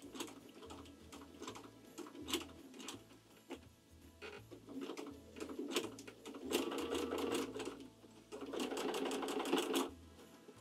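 Home sewing machine free-motion stitching in short start-stop runs, then two longer runs of a second or more near the end, as the hooped stocking cuff is guided under the needle.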